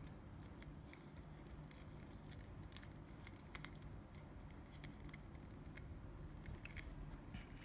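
Faint scattered clicks and light taps of a plastic figure and its parts being handled in the fingers, over steady low background noise.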